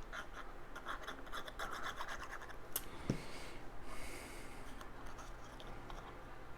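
Cardstock being handled and pressed together while box tabs are glued: scratching and rubbing, with small crackles over the first couple of seconds and a single knock about three seconds in.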